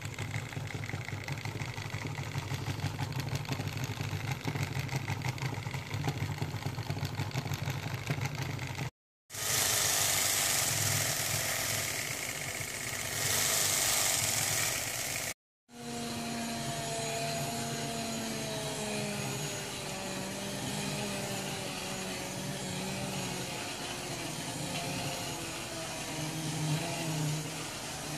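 Small motor-driven scribbling robots buzzing and rattling steadily as they jitter over paper. The sound cuts out briefly twice; the middle stretch is louder and hissier, and in the last part a whine slowly falls in pitch.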